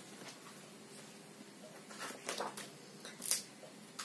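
Soft paper rustles and handling noises as a children's picture book is handled and a page turned: a few brief rustles, the loudest about three seconds in.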